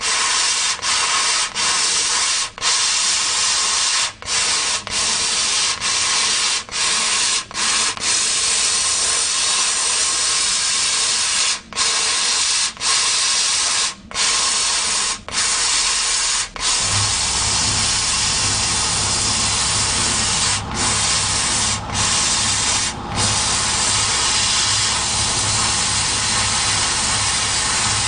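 CO2 laser cutting machine at work cutting a pattern in 4 mm wood: a steady, loud hiss broken by many short gaps. A low hum joins a little past halfway.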